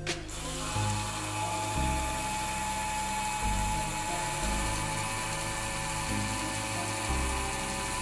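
Small DC electric motor and gear drive of a Mehanotehnika HO T360 model tram chassis running with a steady high whine, under test after its gearbox was repaired with replacement gears. Background music plays along.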